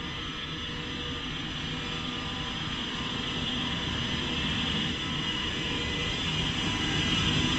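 TGV Duplex double-deck high-speed trainset rolling slowly along the platform. Its steady running and whining noise grows gradually louder as the power car approaches.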